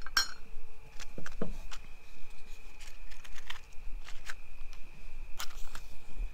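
Scattered light clicks, taps and short scrapes of small camping gear being handled, a dozen or so spread irregularly. Behind them, crickets trill steadily on one high note.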